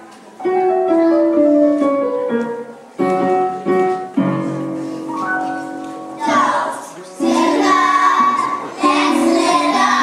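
Children's choir singing a musical number with piano accompaniment: piano notes step along on their own for the first part, and the children's voices come in about six seconds in.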